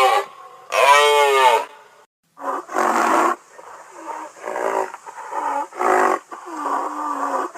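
A wild animal calling repeatedly: a series of short pitched roars or grunts, about seven in all, each around half a second long with short gaps between them.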